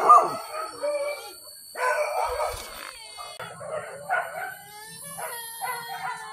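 Hunting dogs baying and howling during a wild boar chase: several overlapping cries that bend up and down in pitch, coming in clusters, one sliding down in pitch near the end.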